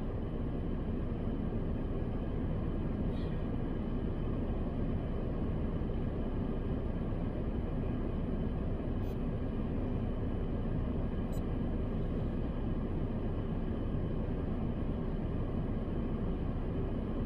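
Steady low rumble with a faint hum inside a car's cabin, as from the car running while parked.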